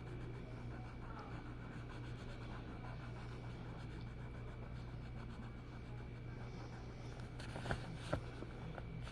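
Faint scratching of art strokes on paper over a steady low electrical hum, with two sharp clicks about a second and a half before the end.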